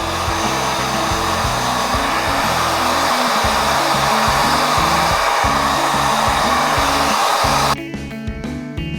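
ReFa Beautech Dryer Pro hair dryer blowing steadily on wet hair, a loud even rush of air that stops abruptly near the end. Background guitar music runs underneath.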